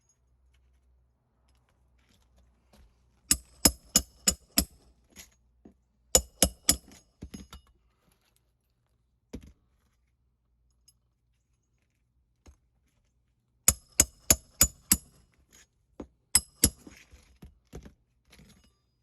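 Sharp metallic strikes in four quick runs of four to six blows, about four a second, each with a bright ring, and a few single taps between the runs: a metal hand tool being struck during a roof shingle repair.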